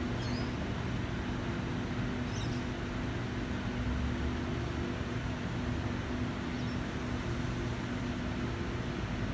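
Steady background rumble of an urban rail corridor with a low hum running through it, and faint brief chirps a little after the start and about two and a half seconds in.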